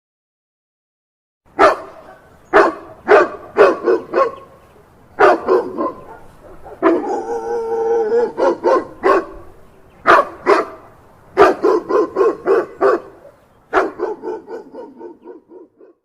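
A dog barking in loud, sharp groups of barks, with one drawn-out, howl-like call in the middle and a quicker run of short barks near the end. It starts after about a second and a half of silence.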